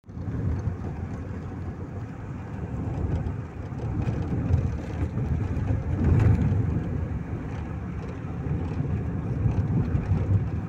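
Road and engine noise heard from inside a moving car: a steady low rumble, louder for a moment about six seconds in.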